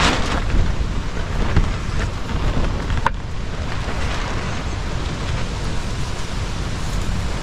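Stormy wind and rain: a loud, steady rushing noise with a heavy low rumble of wind on the microphone.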